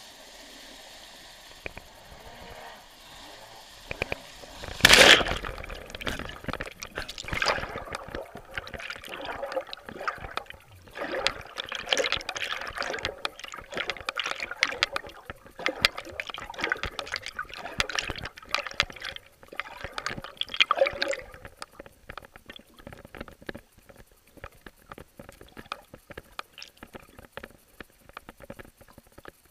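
A loud splash about five seconds in, then water sloshing and gurgling heard through a camera under water, fading to faint scattered ticks and crackles after about twenty seconds.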